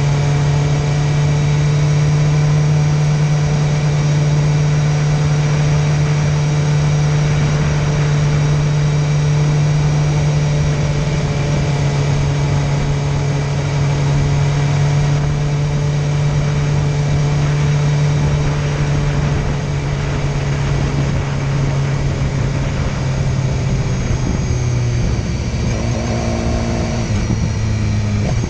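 Motorcycle engine running at a steady cruise under wind and road noise, its pitch dropping near the end as it slows.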